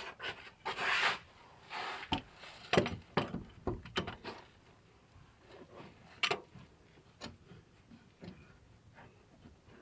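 Large locking pliers being fitted onto a rusted A/C compressor clutch: metal clicks, clinks and scraping. The sharp clicks are bunched in the first half, with a couple more later and fainter handling after that.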